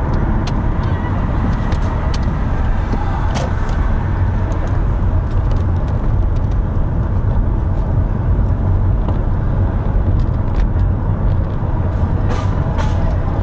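A car running, with a steady low engine and road rumble and a few faint clicks.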